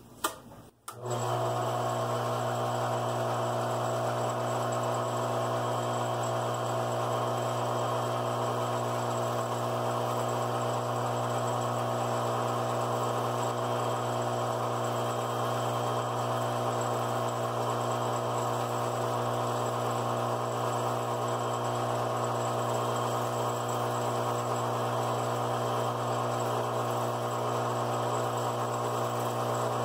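Metal lathe switched on about a second in, then its motor and spindle running at a steady speed: an even hum with several fixed tones that does not change.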